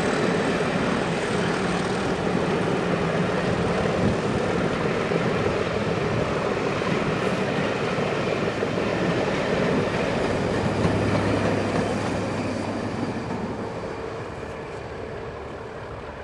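Passenger coaches rolling past, their wheels running on the rails. The noise fades away over the last few seconds as the train draws off round the curve.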